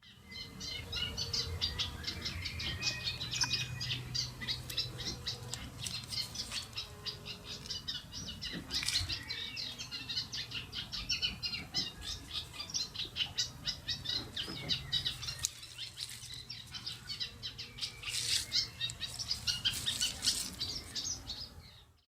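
Birds twittering and chirping continuously in many short, quick notes, with a faint low hum underneath.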